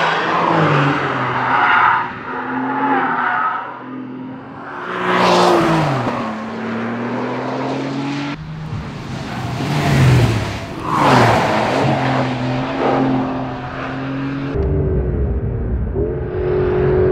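Porsche 911 Carrera GTS's 3.6-litre flat-six engine pulling hard on a race track, its exhaust note rising and falling through gear changes. It passes loudly about five seconds in and again about ten to eleven seconds in, the pitch dropping as it goes by.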